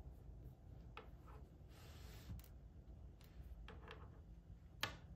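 Small plastic clicks and snaps from the joints of a jointed plastic Dummy 13 action figure being handled and pulled apart, the sharpest snap near the end, with a soft scrape about two seconds in.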